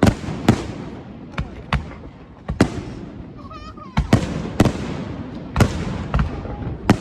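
Aerial fireworks bursting in a rapid barrage: about a dozen sharp bangs, some in quick pairs, each trailing off in an echo.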